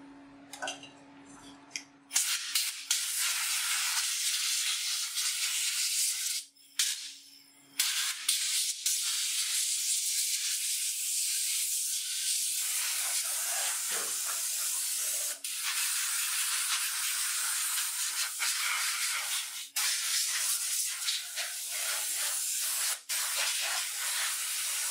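Compressed air from a tyre-repair shop's air-compressor blow gun hissing in long blasts, blowing dust out of computer parts. The hiss starts about two seconds in and stops briefly a few times as the blasts are released and restarted.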